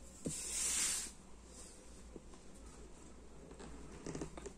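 Hands handling a cardboard jigsaw puzzle box: a brief hiss-like swish of skin sliding across the box's surface, then small taps and rubs near the end.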